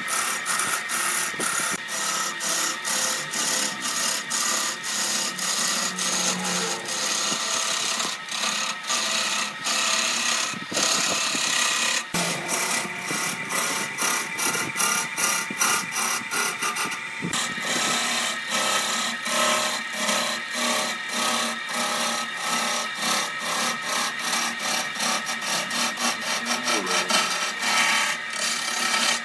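A hand-held turning tool cutting an areca palm stump spinning on a wood lathe: a continuous rough scraping with rapid irregular ticks as the shavings come off. The cut breaks off briefly a couple of times, about twelve and seventeen seconds in.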